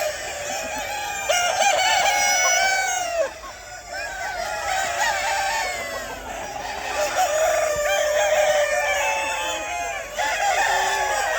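A flock of chickens calling, many calls overlapping at once, with a short lull a little over three seconds in.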